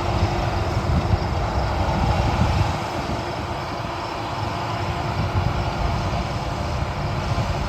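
Heavy harvest machinery running steadily: a continuous mechanical drone with a low rumble that swells and eases.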